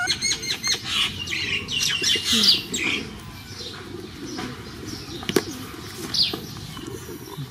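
A young animal's rapid, high-pitched squeaks and whimpers over the first three seconds, then quieter, with one sharp click about five and a half seconds in.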